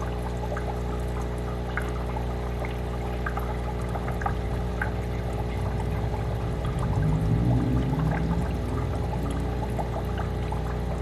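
Air-driven sponge filter bubbling in an aquarium: a steady stream of air gurgling up the lift tube and breaking at the surface, with scattered small pops. Under it runs a steady low hum, and a louder low wavering sound comes a little past the middle.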